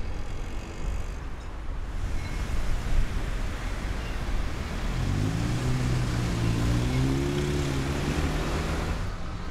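Urban traffic noise: a steady rumble of passing vehicles, with an engine's low drone coming in about halfway through and holding for about four seconds.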